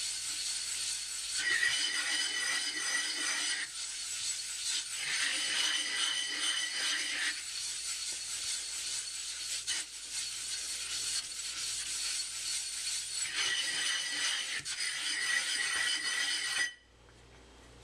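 A soaked whetstone rubbed back and forth on a flattening plate: a steady wet grinding rasp, flattening the stone's face. A high squeal comes and goes over it in stretches, and the grinding stops abruptly near the end.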